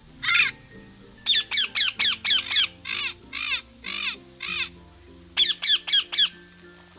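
A bird giving short, high calls with sharply bending pitch: one call, then a quick run of six, four longer calls, and a quick run of five near the end, over steady background music.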